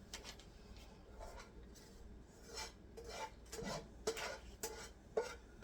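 Light, scattered clinks and scrapes of a utensil against a pan as food is moved and arranged, about half a dozen small knocks spread over a few seconds.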